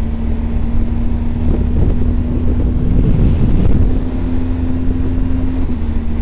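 BMW R 1250 GS Adventure's boxer-twin engine running at a steady note under way, over low road and wind rumble. A short swell of rushing noise comes about two to three seconds in.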